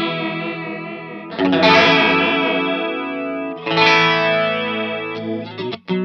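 Fender Stratocaster electric guitar with a light overdrive, played through the Native Audio Pretty Bird Woman chorus-vibrato pedal into a Vox AC30 amp, so that its tone wavers. Chords are strummed and left to ring, with a new strum about a second and a half in and another near four seconds in.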